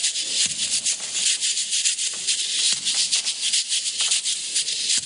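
A washboard scraped in a fast, even rhythm as an instrumental break between verses, a dry rasping percussion with no singing over it.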